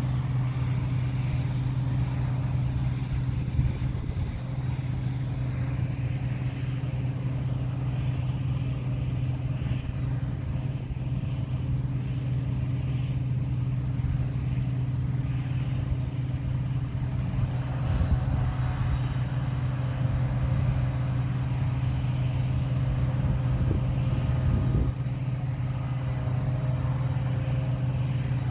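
Diesel engine of heavy harvest machinery running steadily at a constant speed, a continuous even drone.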